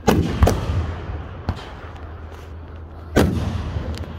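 Fireworks bursting: two loud booms at the start, a smaller pop about a second and a half in, another loud boom about three seconds in and a faint pop near the end, each trailing off in an echo, over a steady low hum.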